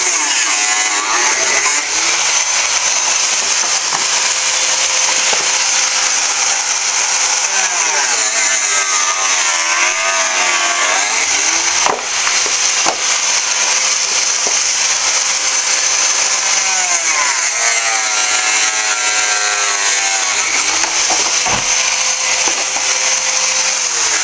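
Handheld electric angle grinder cutting into a Kärcher pressure washer's casing. The motor's whine sags and recovers again and again as the wheel bites and is eased off, over the hiss of the cut, with a brief let-up about halfway through.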